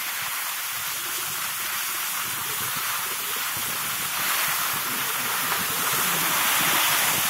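Skis sliding over packed snow: a steady hiss that grows a little stronger about halfway through.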